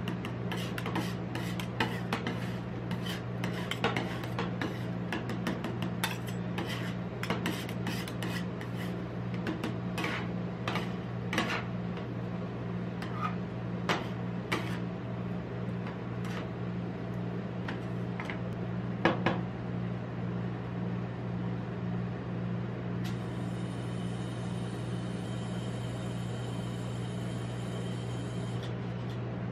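Metal spatulas chopping, tapping and scraping ice cream mix on the frozen steel plate of a rolled-ice-cream machine. Dense sharp taps and scrapes for about the first twenty seconds, then only a few, over a steady low hum.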